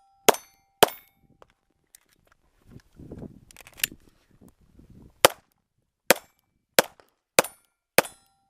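Pistol shots fired during a defensive pistol stage: two quick shots, a pause of about four seconds filled with rustling movement noise, then five shots in an even string about two-thirds of a second apart. A faint ringing tone hangs briefly after the first shots.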